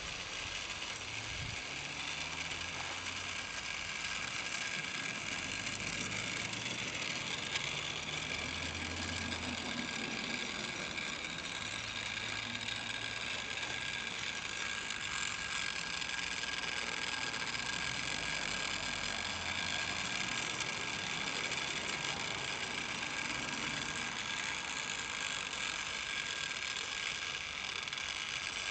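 OO gauge model locomotive (an N2 tank engine) running along the track, its small electric motor and gears giving a steady high whirr with a low rumble from the wheels on the rails.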